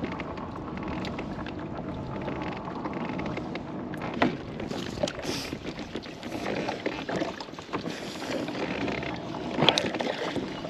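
Water sloshing and splashing around a kayak, with a few sharp knocks, one about four seconds in and a louder cluster near the end.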